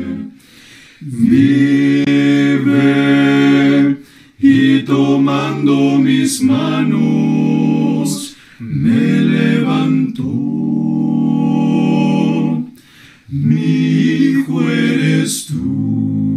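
Male vocal quartet of two tenors, baritone and bass singing a hymn a cappella in close harmony. Held chords come in phrases of a few seconds, broken by short pauses for breath.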